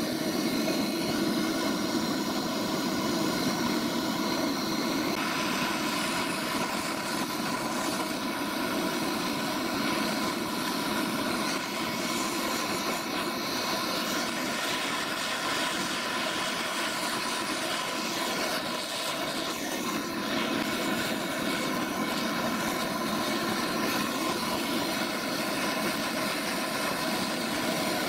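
Gas blowtorch flame burning with a loud, steady rush as it heats a brass bracket joint for brazing.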